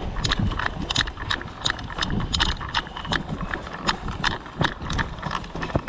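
Quick footsteps crunching on dirt or gravel, about two to three steps a second, with wind rumble on the microphone.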